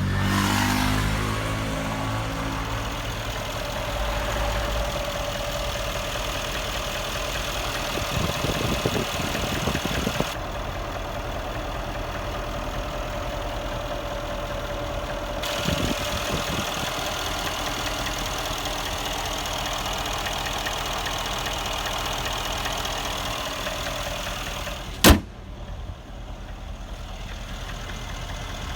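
Mercedes-AMG M157 5.5-litre twin-turbo V8 idling with a diesel-like ticking; the owner does not know its cause and suspects cam failure, a worn lifter or an oil connector problem. The revs drop and settle in the first couple of seconds, and a single sharp click comes near the end.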